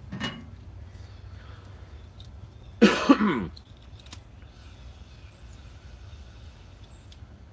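A man clearing his throat once, a short gravelly vocal noise about three seconds in, over a low steady hum.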